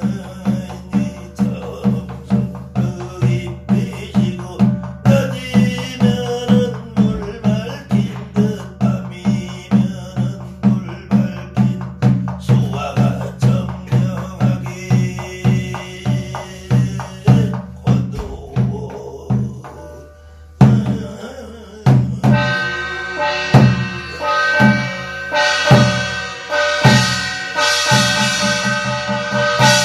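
Korean barrel drum (buk) beaten with a stick in a steady beat of about two strokes a second under a man's chanted scripture recitation (gyeong-reading). About twenty seconds in the drumming breaks off, then resumes with heavier strokes joined by a ringing brass gong.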